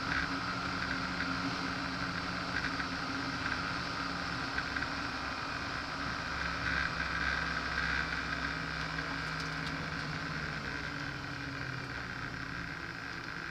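Car engine running steadily at moderate revs, heard from inside the cabin over road and wind noise, with no hard revving; its pitch drops a little about ten seconds in.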